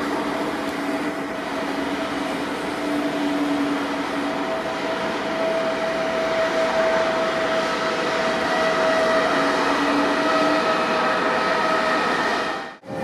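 Casaralta double-deck passenger carriages rolling past on the track: a steady rush of wheel-on-rail noise with a few faint held whining tones, cutting off abruptly near the end.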